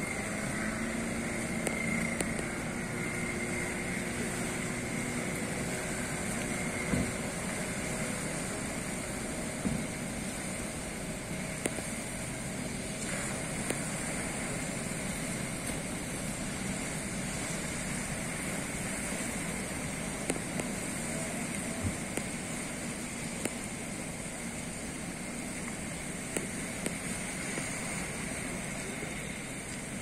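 A 15 hp outboard motor runs on a small outrigger fishing boat, its faint drone fading after the first few seconds as the boat pulls away. A steady wash of surf and wind covers it.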